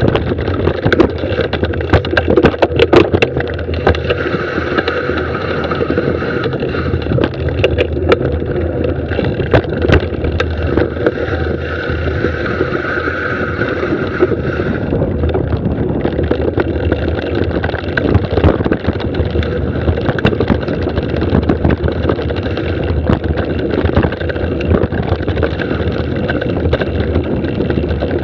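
Mountain bike descending a rocky dirt singletrack at speed: tyres rolling over dirt and rock and the bike rattling over bumps, with a constant rush of wind on the camera microphone.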